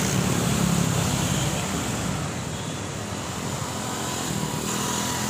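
Street traffic: a passing vehicle engine hums close by for the first second or two and fades, leaving a steady wash of traffic noise.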